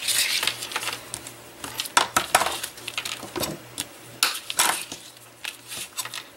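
Plastic bone folder burnishing folded paper flaps covered with aluminium foil tape: several short scraping rubs with small taps and paper handling noises between them.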